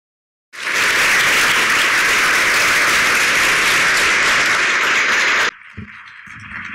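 Lecture-hall audience applauding: dense, steady clapping that starts abruptly about half a second in and cuts off suddenly about a second before the end, leaving fainter sound.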